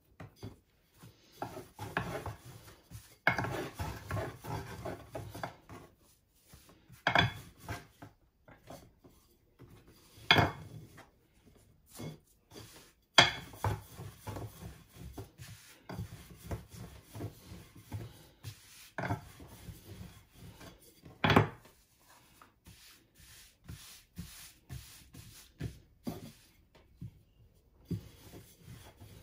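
Rolling pin working lahmacun dough on a wooden board: irregular rubbing and scraping, with four sharp knocks, the loudest about halfway through.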